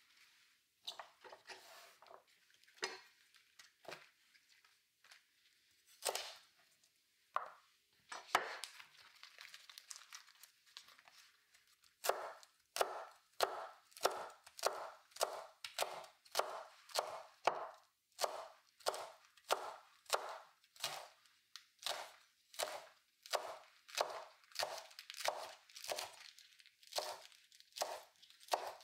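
Kale being stripped from its stems by hand: scattered tearing and handling sounds. Then, from about halfway through, a chef's knife chops the kale on a wooden cutting board in a steady rhythm of about two chops a second.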